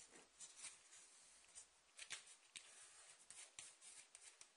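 Faint rustling and crackling of a sheet of paper as fingers fold a corner over and press the crease flat, a series of short scratchy crinkles.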